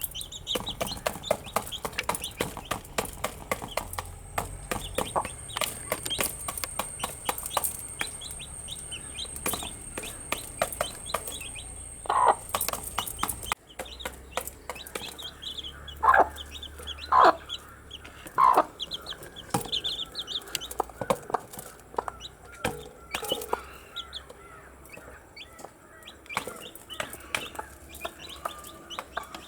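Baby chicks peeping and chirping continuously in quick, high calls, with a few louder, lower calls about halfway through.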